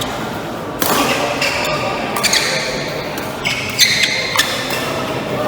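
Badminton rally: rackets strike the shuttlecock several times, sharp hits about a second apart with a brief ringing after each, echoing in a large hall.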